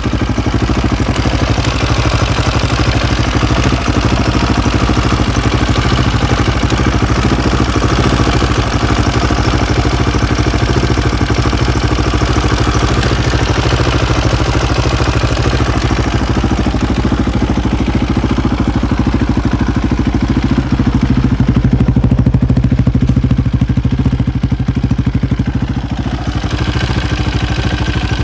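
Freshly rebuilt KTM LC4 620 SC single-cylinder four-stroke motorcycle engine running steadily without revving. About three-quarters through, the sound turns duller and deeper for a few seconds.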